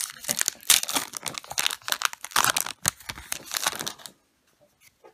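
Crinkling and tearing of a Magic: The Gathering booster pack's foil wrapper as it is ripped open and the cards are pulled out, stopping about four seconds in.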